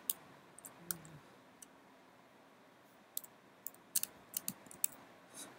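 Faint computer keyboard key clicks: a couple of single keystrokes in the first second, a pause of about two seconds, then a quick run of about half a dozen keystrokes.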